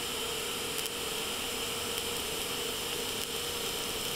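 TIG welding arc burning on a steel roll-cage tube: a steady hiss with a constant underlying tone.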